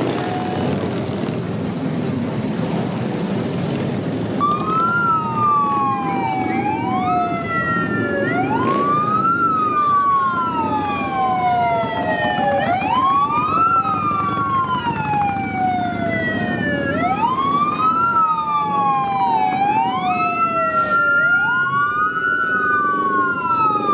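Police car sirens wailing, starting about four seconds in: each wail climbs quickly and falls slowly, about every four seconds, with two wails overlapping out of step.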